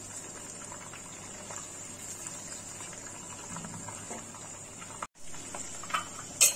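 Hot oil sizzling steadily in a kadai where chicken pieces have been fried. The sound cuts out briefly about five seconds in, and a wooden spatula knocks against the pan a few times near the end.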